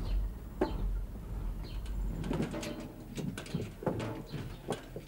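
Metal milk churns being lifted and set down on a wooden loading platform and wagon bed: a string of irregular clanks and knocks with some scraping.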